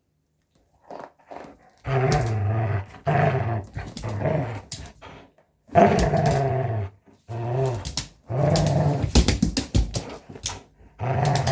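Dog growling at play over a toy, in repeated spells of about a second each, with a run of quick sharp clicks in the last few seconds.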